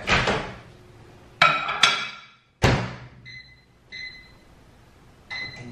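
Microwave oven being used: a few knocks and clinks, then the door shut with a thunk about two and a half seconds in. Short keypad beeps follow, and near the end the microwave starts running with a low steady hum.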